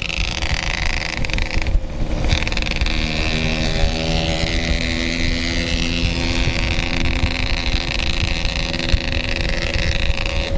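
Yamaha RX-King 135cc two-stroke single-cylinder engine running under way, its pitch falling and rising with the throttle and briefly dropping away about two seconds in, with wind noise on the microphone.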